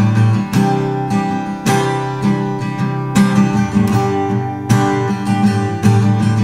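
Acoustic guitar strumming chords in an instrumental passage of a song, with no voice.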